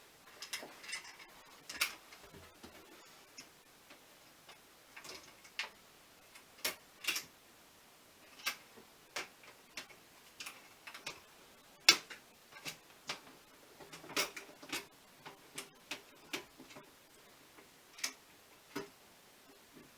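Irregular light clicks and taps of small hard objects being handled, about one or two a second, with one sharper knock about twelve seconds in.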